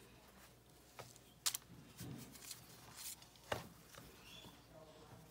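Quiet handling sounds as pie dough is laid and fitted into a glass baking pan: a few light, sharp taps and clicks, the sharpest about one and a half seconds in, with faint rustling between them.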